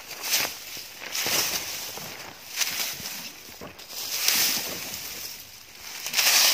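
Footsteps crunching and swishing through dry grass and fallen leaves, a rustling step every second or two.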